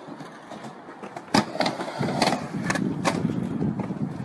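Skateboard on a wooden ramp: a sharp clack of the board striking the deck about a second and a half in, then the rumble of its wheels rolling on the ramp surface, with several more knocks.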